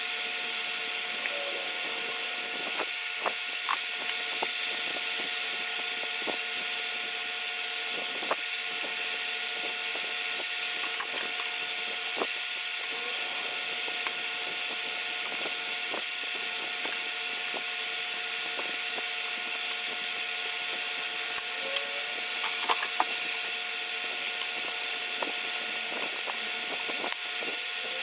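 Light taps, clicks and scrapes from pen, ruler and cardboard being worked on a wooden workbench, over a steady hum and hiss of shop background noise.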